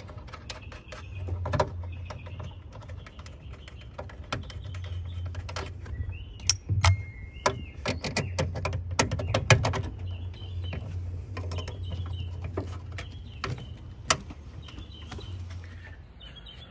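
Hand tools and metal parts clicking and clinking in irregular knocks while a car's power antenna assembly is unbolted, with a burst of louder knocks in the middle. Birds chirp briefly in the background.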